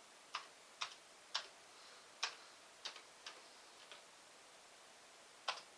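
Eight sharp key clicks at uneven intervals as a password is typed on a Commodore 64 keyboard, the last, about five and a half seconds in, the Enter keystroke that submits it.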